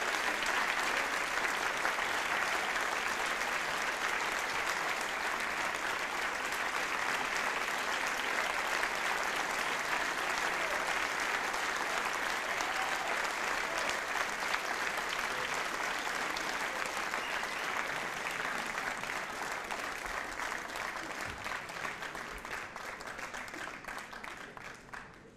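Audience applauding with dense, steady clapping that slowly thins and fades, dying away near the end.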